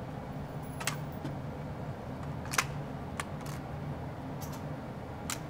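HK G36 rifle being cleared after firing: several sharp metallic clicks, one at a time and a second or so apart, as the magazine and action are worked to make it safe.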